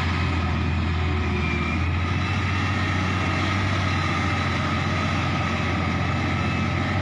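Heavy construction machine's diesel engine running steadily with a deep, even drone.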